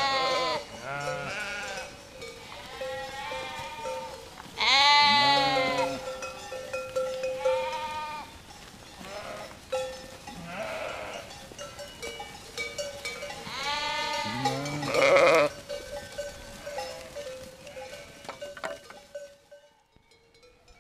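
A flock of sheep bleating: several loud drawn-out calls and many fainter ones overlapping, with bells on the animals clinking and ringing among them. It all dies down near the end.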